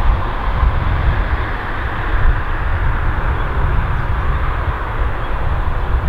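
Wind buffeting the microphone outdoors: a gusty low rumble over a steady hiss.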